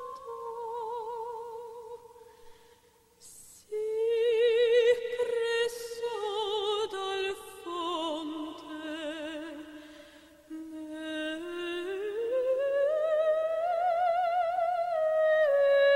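Background music: a slow solo high voice in operatic style, holding long notes with wide vibrato and pausing briefly about two seconds in.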